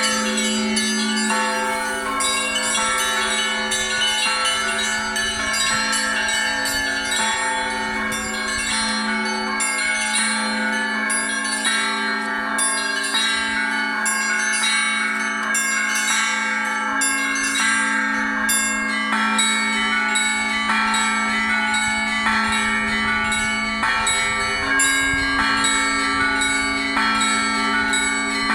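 Russian Orthodox church bells ringing in a continuous peal: smaller bells struck in quick succession over the steady hum of a larger, lower bell.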